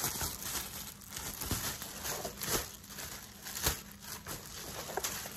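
Thin clear plastic bag crinkling and rustling in irregular crackles as it is crumpled and pulled open by hand.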